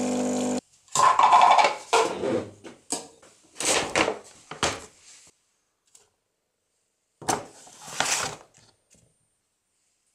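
Automatic coffee machine's pump humming steadily as it dispenses into a mug, cutting off about half a second in. After that come several bouts of kitchen handling noise, a spoon scraping and clinking as whey protein powder is scooped into a plastic shaker cup.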